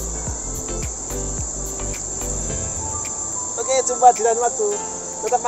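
Insects chirring in a steady high-pitched buzz. A man laughs briefly about four seconds in.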